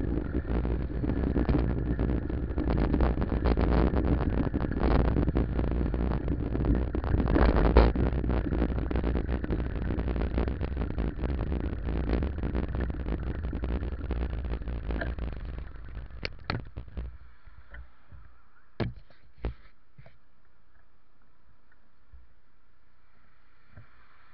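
Wind buffeting and road rumble on a bicycle-mounted camera's microphone while riding along a road. The noise dies away about two-thirds of the way through as the bike slows, leaving a low hum and a few sharp knocks.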